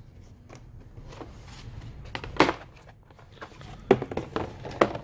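A cardboard board-game box being opened and a folding cardboard draughts board lifted out and handled. A few light knocks and scrapes of cardboard: the loudest comes about halfway through, and two more come near the end.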